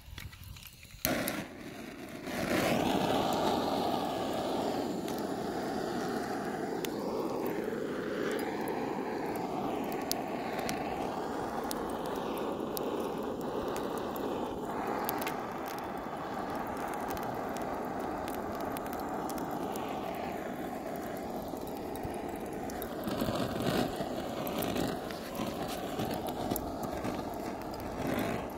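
A small electric blower runs steadily from about two seconds in, blowing air into burning charcoal in a grill to bring the coals to a glow.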